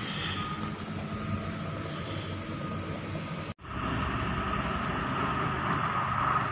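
Diesel engines of coal haul trucks running steadily. The sound cuts out for an instant about three and a half seconds in, then comes back a little louder as a haul truck with a dump trailer pulls out onto the road.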